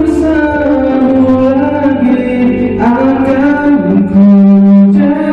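A man singing into a microphone with a musical accompaniment. The melody glides downward, then settles into a long held low note about four seconds in, the loudest part.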